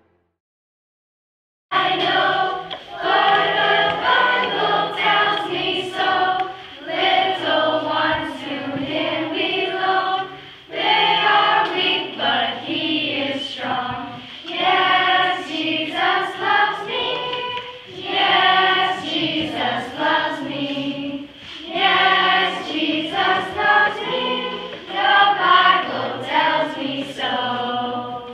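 A group of children and young adults singing a song together in phrases, starting after a second or two of silence.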